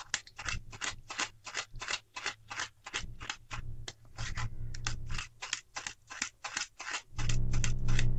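A spoon scraping round inside a stainless steel mesh strainer, working thick ground tomato and green chilli purée through the mesh in quick strokes, about four a second, heavier near the end.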